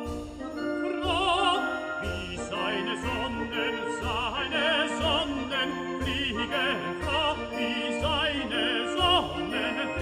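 Background music: an operatic voice singing with wide vibrato over orchestral accompaniment, with a low beat about once a second.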